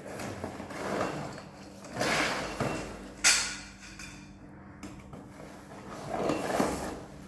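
A box being opened and its contents handled: sliding, scraping and rustling noises with a sharp snap about three seconds in.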